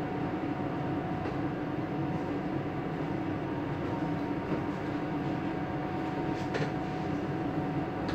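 A boat's engine running steadily, a low drone with a constant hum, heard from inside the cabin.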